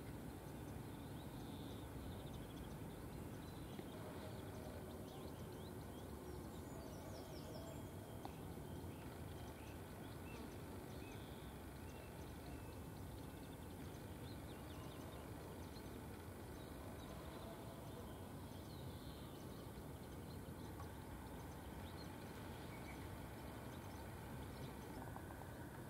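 Faint outdoor ambience: a steady low rumble, with faint high chirps of small birds here and there.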